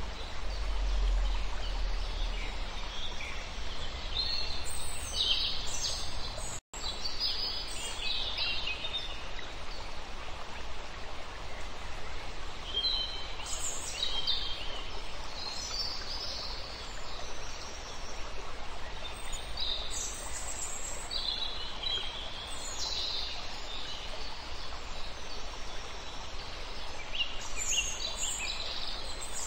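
Birds chirping and calling in short scattered phrases over a steady outdoor background hiss. The sound cuts out for an instant once, about seven seconds in.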